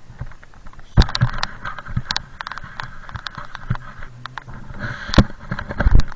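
Snowboard sliding down through snow, with a hiss of snow under the board and a rapid run of knocks and rattles from bumps on the way down. Loud thumps come about a second in, just after five seconds and near the end.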